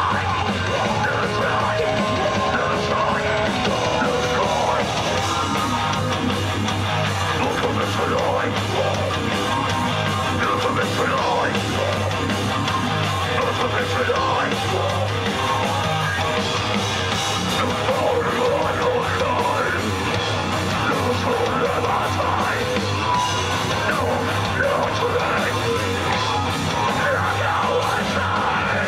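Thrash metal band playing live: distorted electric guitar and bass over a drum kit, with shouted vocals, at a steady loud level.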